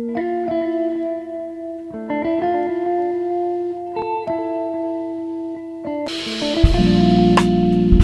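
Background music: a plucked-string melody of held notes. About six seconds in it gets louder and fuller as drums and bass come in.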